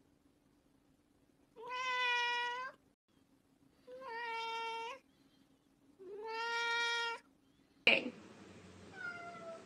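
Domestic cat meowing three times, each meow drawn out for about a second with a short gap between them.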